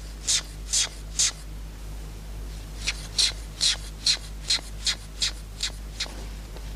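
A perfume atomizer sprayed in quick, short hissing puffs: three, a pause of over a second, then about ten more at two to three a second.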